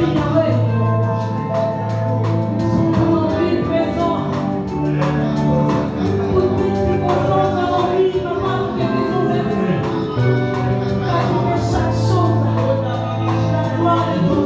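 A live church band playing an upbeat gospel song: voices singing into microphones over electric guitar and a steady percussion beat.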